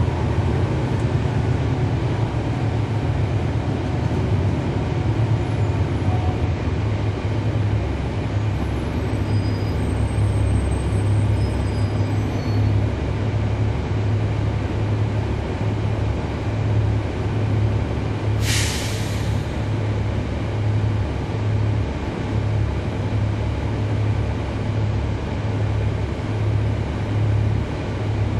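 A NABI 40-SFW transit bus's Cummins ISL9 diesel engine running with a steady low drone. About eighteen seconds in comes one short burst of air hiss from the bus's air system.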